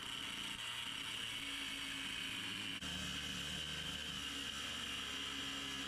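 A power cutting tool running steadily with a high whine as it cuts the threaded end off a large steel bolt; its low hum shifts about three seconds in.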